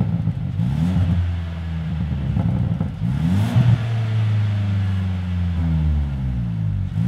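Stage 2 tuned Mercedes-Benz C200 W205's turbocharged four-cylinder petrol engine with an ARMYTRIX exhaust revving on a dyno. The revs sweep up, rise again about three seconds in, hold high for a couple of seconds, then fall away near the end.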